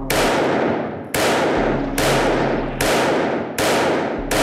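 CZ P-09 Kadet .22 LR pistol fired in a rapid string: six sharp shots, about one every 0.8 seconds, each followed by a long echoing tail.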